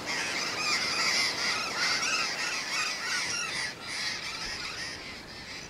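A flock of birds calling, many short calls overlapping, fading away near the end.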